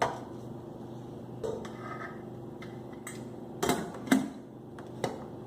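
Pots and utensils clinking and knocking a handful of times as dal and chopped chayote are loaded into a pressure cooker, the loudest knock about four seconds in, over a steady low hum.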